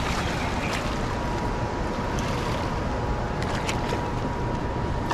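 Steady rush of river current, with a hooked smallmouth bass splashing at the surface of the shallow water a few times.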